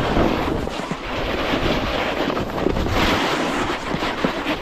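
Wind rushing over the microphone while a snowboard scrapes and chatters across crusty snow during a run.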